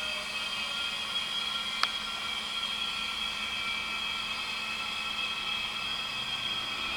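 Pneumatic motorcycle lift working its air system under a load of about 1,500 lb, a steady hissing whir with a few high steady tones, and one sharp click about two seconds in.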